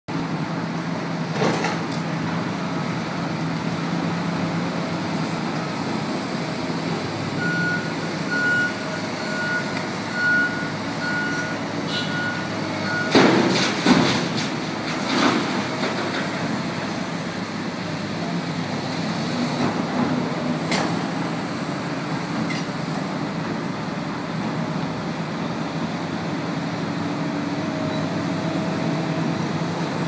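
Kobelco hydraulic excavator's diesel engine running steadily as it digs and loads a dump truck. A reversing alarm beeps evenly for about five seconds, and a few loud clanks and knocks come about halfway through.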